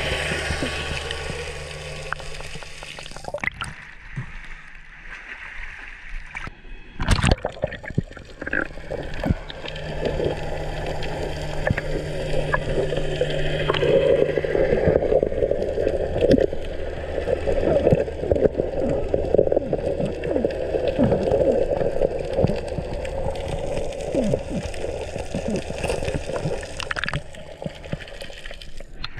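Water gurgling and bubbling as heard underwater, with many small clicks and crackles throughout and one sharp knock about seven seconds in.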